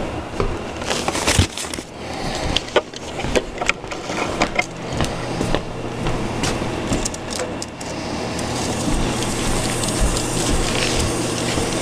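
Clicks and knocks of handling in the first few seconds, then a steel tape measure's blade being pulled out and run along a table edge, over a low steady hum.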